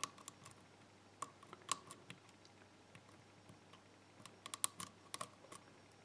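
Faint, irregular clicks of a Peterson hook pick tapping and lifting the pins of a five-pin Ruko pin-tumbler cylinder held under light tension, single pin picking. A quick run of clicks comes about four to five and a half seconds in.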